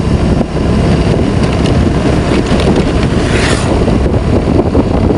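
Wind buffeting the microphone over the low rumble of a vehicle moving along a road, with a brief louder hiss about three seconds in.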